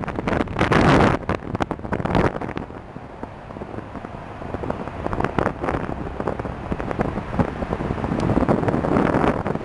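Wind buffeting the microphone in gusts, loud in the first second or so, easing off in the middle and building again near the end.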